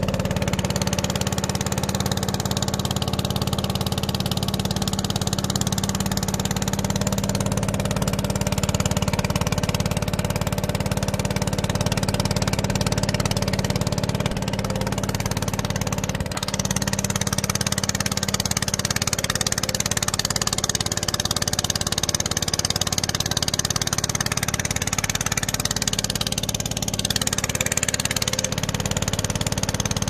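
Inboard engine of a narrow wooden motorboat running steadily under way, a constant low drone, with the rush of wind and water as the boat cruises.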